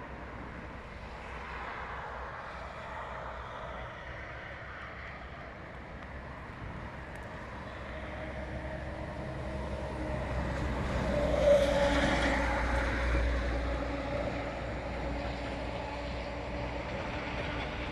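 A motor vehicle passing by: it grows louder from about halfway through, is loudest a little past two-thirds of the way in with a steady engine tone, then fades away.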